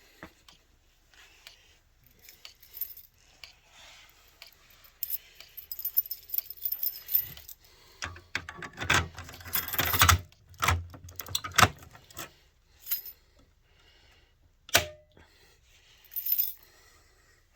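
Irregular metallic jangling, clicks and rattles of hands handling small hard objects, busiest about eight to twelve seconds in; no alarm horn sounding.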